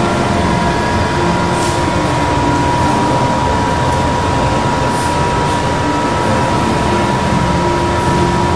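Steady, loud rushing background noise with a constant hum-like tone.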